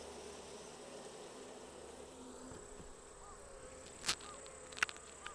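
Japanese honeybees buzzing faintly over an open hive, a low steady hum. Two short sharp clicks sound near the end, less than a second apart.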